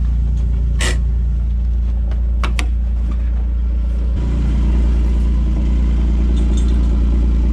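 Utility vehicle engine running steadily, with a few sharp clicks about one and two and a half seconds in; about four seconds in the engine note steps up, louder and a little higher, and holds.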